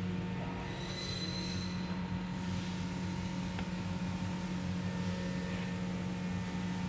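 Steady low electrical hum of room background, with a thin high tone above it and a faint click about midway.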